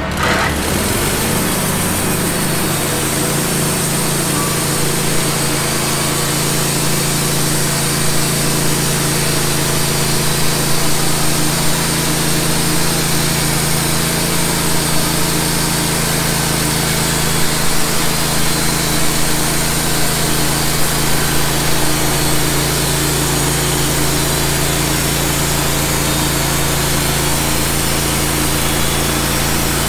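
Wood-Mizer LT15 portable band sawmill cutting, its band blade sawing a board off a squared log as the saw head moves along it. The motor runs steadily under load throughout.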